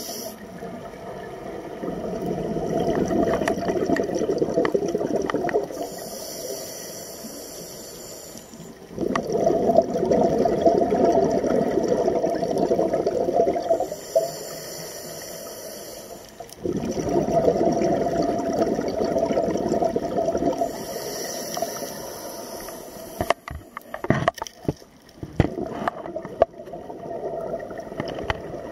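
Scuba breathing through a regulator heard underwater: a hissing inhale followed by a longer, louder burst of exhaust bubbles, repeating about every seven to eight seconds for three breaths. Near the end, a few sharp clicks and knocks.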